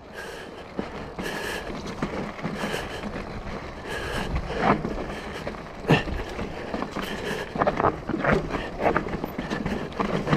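Mountain bike descending a rough, grass-overgrown downhill trail: tyres on dirt and grass, with several sharp knocks from the bike, the strongest about six seconds in, and wind on the microphone.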